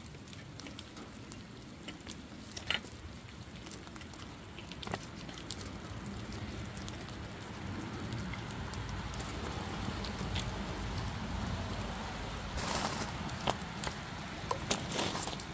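Scattered clicks and crunches of boots and a steel tool on gravel ballast, over a steady rustle of light rain. A low rumble swells from about the middle to near the end.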